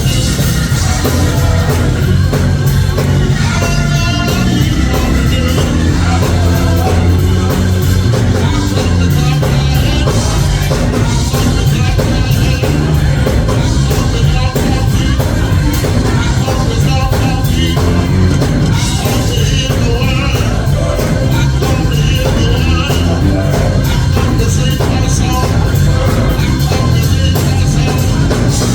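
Church praise music played live by a band with drums and strong bass, with singing over it.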